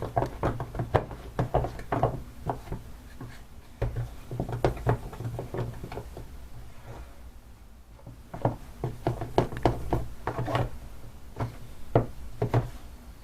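Slime mixed with shaving foam being stirred in a container: irregular knocks and clicks of the stirrer against the container, easing off for a moment in the middle.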